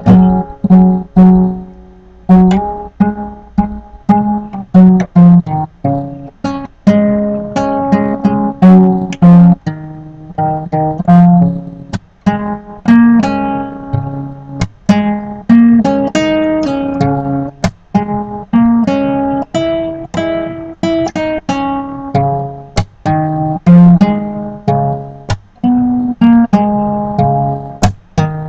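Acoustic guitar, capoed, played solo in a fast improvised folk style: quick strummed chords mixed with picked single-note runs, each attack sharp and ringing on.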